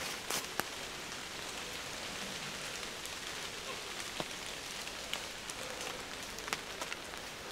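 Heavy rain shower falling steadily on woodland leaves, a continuous hiss with a few single drops ticking close by.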